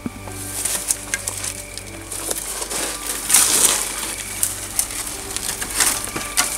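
Footsteps crunching and snapping through dry debris and brittle wood, with irregular cracks and rustles, loudest about halfway through.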